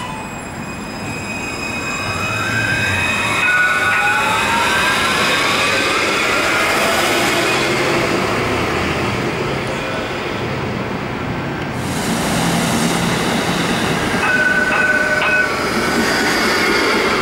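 Alstom Citadis C-class trams: a rising electric traction whine as one pulls away over the first few seconds, then the steady rumble of wheels on rail as another passes close. A short high wheel squeal comes twice, once about three seconds in and again near the end.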